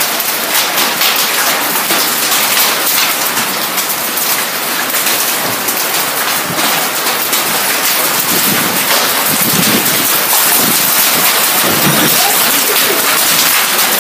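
Heavy rain pouring down in a storm: a dense, steady hiss full of the close patter of drops.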